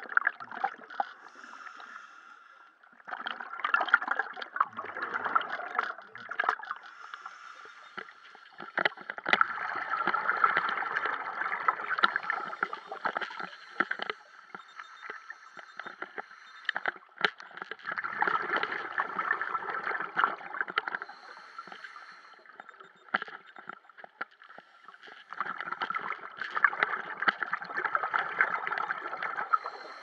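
Scuba diver's exhaled bubbles gurgling out of a Mares MV 12 S regulator underwater, in four bursts of a few seconds each, with quieter gaps between breaths.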